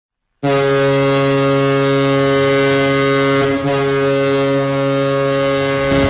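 Mississauga Steelheads' ice hockey goal horn sounding one long, loud, steady blast, with a brief dip about three and a half seconds in: the signal that the home team has scored.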